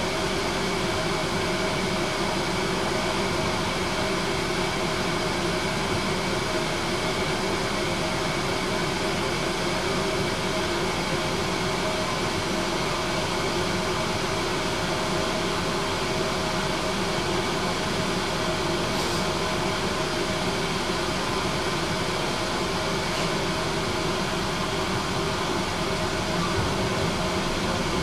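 Tram interior noise: a steady hum with a few held tones over an even rumble.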